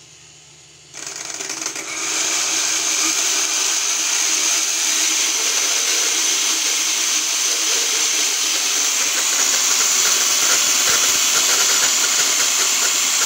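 Electric RC car drivetrain spinning up about a second in and running steadily at speed, its spur gear turning a small 12-volt DC motor through a pinion so that it works as a generator. A steady high whine with gear noise from the pinion mesh, which the owner says is not right and wants to fix.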